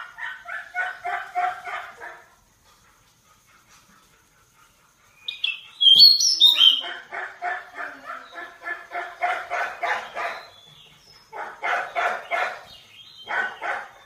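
Caged magpie-robin calling: runs of quickly repeated notes, about four a second, with a pause in between, then a few loud, high whistled notes sliding in pitch about five to six seconds in, before the repeated notes resume in several long runs.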